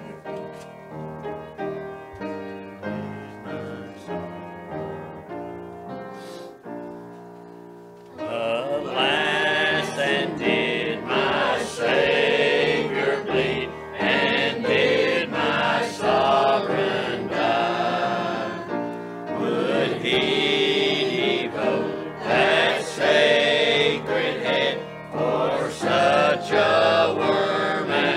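A piano plays a quiet interlude of chords for about eight seconds, then a mixed church choir comes in loudly, singing a hymn over the piano accompaniment.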